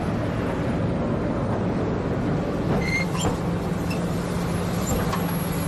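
Large SANY SY375H excavator's diesel engine running steadily close by, a constant low hum.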